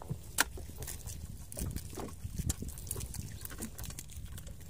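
Gill net being hauled and cleared of fish by gloved hands: nylon mesh rustling, with scattered small clicks and taps, a sharp click about half a second in, all over a low steady rumble.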